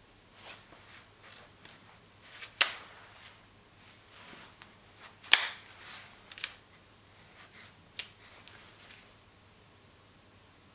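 Sharp mechanical clicks from a WE MSK airsoft gas blowback rifle being handled at its flip-up rear sight: four distinct snaps, the loudest about five seconds in, among softer clicks and rubs.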